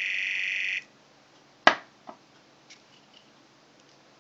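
Sonic screwdriver replica's electronic sound effect, played through a tiny ear bud speaker by an ATtiny85 microcontroller: a high buzzing tone lasting just under a second. About a second later comes a sharp click and a smaller one as the brass body's slide snaps shut.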